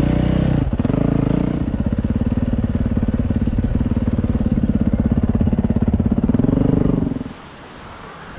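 Yamaha YZ450F's single-cylinder four-stroke engine revving up and down, then running at low, steady revs with distinct exhaust pulses. The engine sound cuts off abruptly about seven seconds in.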